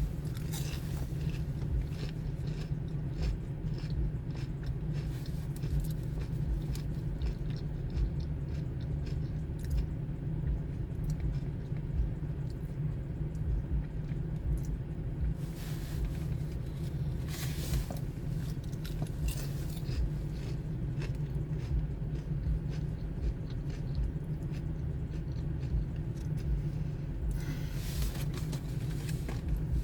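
A person chewing and biting into crunchy fried food such as onion rings close to the microphone, with short crunchy clicks and a few louder crunches, over a steady low rumble.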